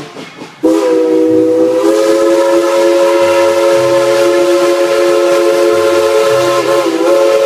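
Steam locomotive whistle blowing one long blast, a chord of several notes, starting about a second in, with a brief dip in pitch near the end.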